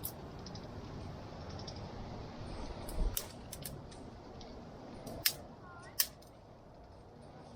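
A handful of sharp, brief clicks, the loudest about five and six seconds in, over a steady rushing background.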